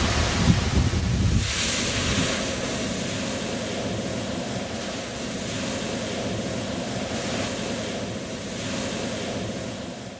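Ocean surf breaking and washing onto the shore, a steady rushing that is loudest in the first second or two.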